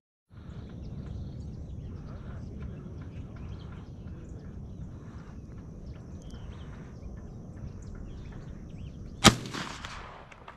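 Low open-field background with faint chirps, then a single loud 12-gauge shotgun shot about nine seconds in, ringing out briefly after the crack.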